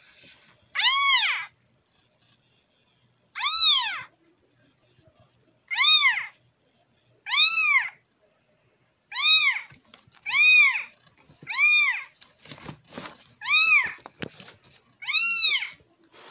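Recorded kitten meows played through a mobile phone's speaker: nine near-identical calls, each rising then falling in pitch, repeated every one to two seconds over a faint high hiss. A few short handling knocks come about two-thirds of the way through.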